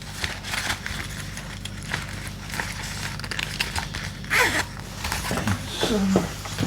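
Handling noise from unpacking accessories out of a guitar case: soft rustling and light clicks and knocks over a steady low hum, with one louder rustle about four and a half seconds in.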